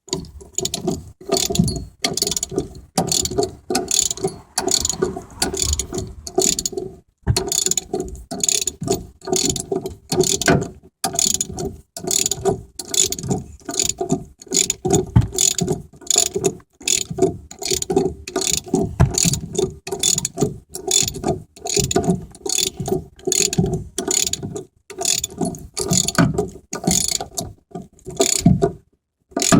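Ratchet wrench clicking over and over, with a short pause about seven seconds in, as it works the lock nut on top of a rear strut. The strut's inner spindle is turning with the nut, so the nut is not tightening.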